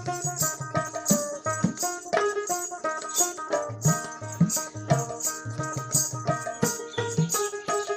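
Instrumental background music with pitched melody notes over a steady percussion beat.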